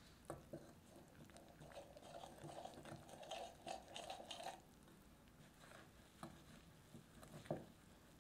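A metal dough hook stirred by hand through flour and wet dough ingredients in a glass bowl: soft, crumbly scraping and squishing, with a few light clicks of the hook against the bowl, the sharpest near the end.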